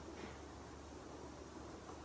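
Carrom striker flicked across the board and knocking into the carrom men, a faint click early on and a sharper click right at the end, over a steady low hum.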